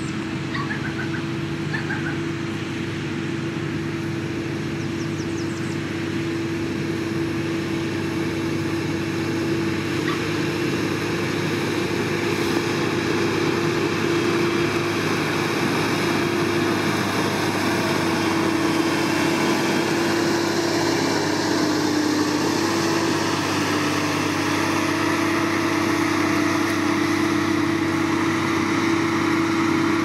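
Heavy road-construction machine's diesel engine running steadily, a constant droning hum that grows slightly louder over the stretch.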